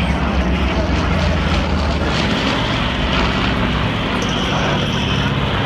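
A piston-engine propeller warbird flying past, its engine drone steady.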